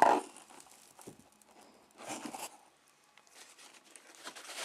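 Paper and cardboard packaging of a model airplane kit being handled: a short loud rustle at the start, a burst of crinkling about two seconds in, and a few light clicks and scrapes between.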